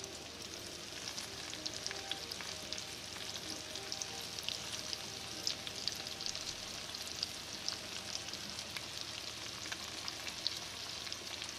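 Flour-dusted chicken pieces searing in hot oil and butter in a cast-iron skillet: a steady frying sizzle with frequent small pops and crackles.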